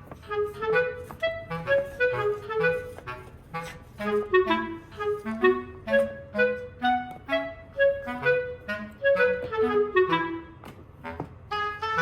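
Instrumental music made of quick, short pitched notes in a bouncy melody.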